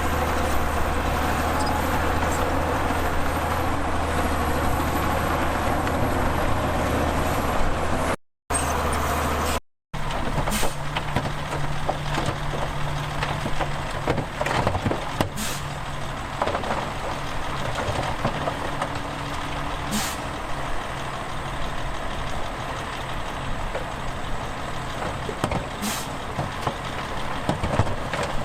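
Heavy diesel earthmoving machinery running: a deep, steady engine hum, then, after the sound cuts out briefly twice about eight and ten seconds in, a higher engine note with occasional sharp clanks.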